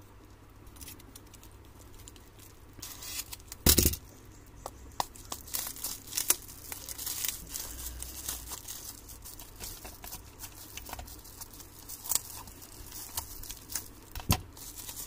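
Shipping packaging being torn open and crumpled by hand: irregular crinkling and tearing with a few sharp crackles, the loudest about four seconds in.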